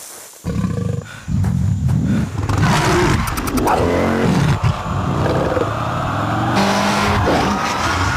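Motorcycle engine revving, its pitch rising and falling several times, starting after a brief quiet moment.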